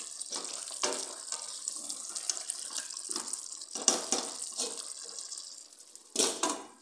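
Goat stew with tomatoes simmering with a steady sizzle in a steel pot, stirred with a wooden spoon that knocks against the pot a few times. Near the end the glass pot lid is set back on with a clatter.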